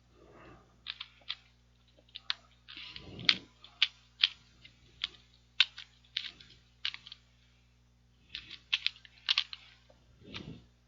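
Plastic clicks and clacks of a Rubik's brand 2x2x2 cube being turned quickly by hand during a speedsolve, irregular at a few turns a second with a brief pause partway through. The cube is stiff and doesn't turn well.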